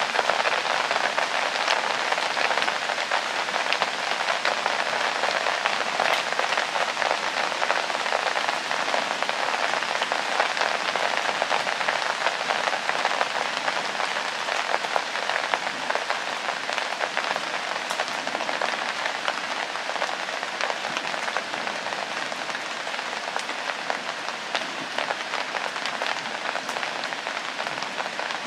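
Steady rain falling: a dense, even hiss made of many small drop ticks, slightly quieter toward the end.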